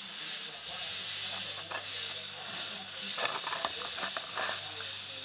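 A cornstarch-and-detergent slime mixture squeezed and worked by hand, giving short clusters of small wet crackles and squelches over a steady background hiss.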